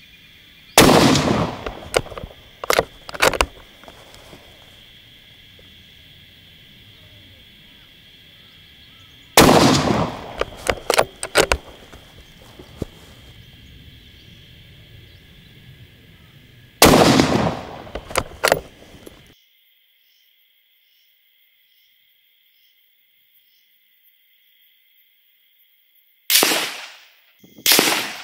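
Three .223 Remington shots from a Sauer S100 bolt-action rifle, seven to eight seconds apart, each followed by a few sharp clicks as the bolt is worked. After some seconds of silence, three more shots come about a second apart near the end.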